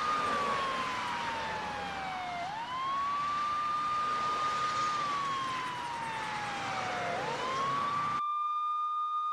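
Emergency-vehicle siren wailing: each cycle rises quickly, holds a high note, then slides slowly down, repeating about every four and a half seconds over the hiss of road traffic. The traffic noise cuts off suddenly near the end while the siren carries on alone.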